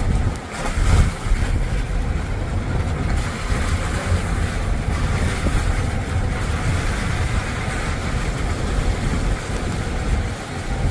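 Sea surf washing against the shore, with wind buffeting the microphone in a heavy, uneven rumble.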